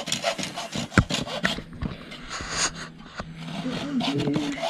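Hacksaw blade sawing a thin bamboo cane in quick, uneven strokes, with a sharp knock about a second in.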